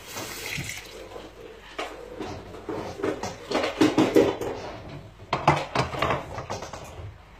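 Dishes and cutlery knocking and clattering irregularly in a kitchen sink during hand dish-washing, with a short hiss at the start.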